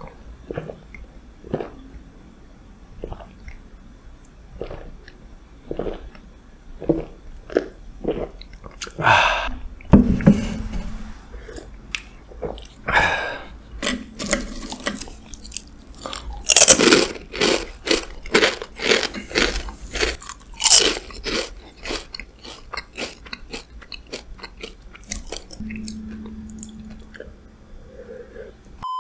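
Close-miked ASMR eating: crisp dry snacks bitten and crunched, loudest and most frequent in the middle stretch. Softer gulping of beer comes before and after.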